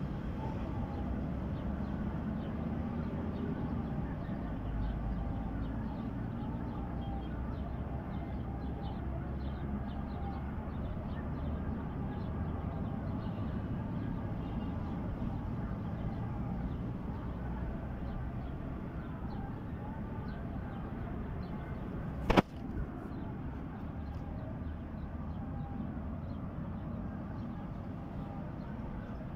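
Steady low background rumble with faint scattered ticks, and one sharp click about three-quarters of the way through.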